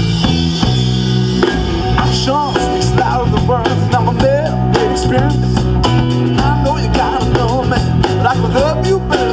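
Rock band playing an instrumental passage: a steady drum beat and bass line, with a lead line of bending, sliding notes over the top.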